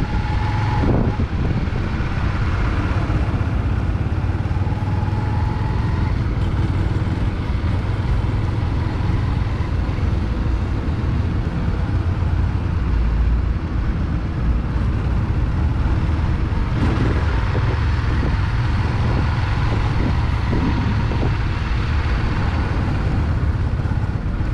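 A small Honda motorcycle's engine running steadily at low speed while it is ridden, with wind rumbling on the helmet-mounted microphone.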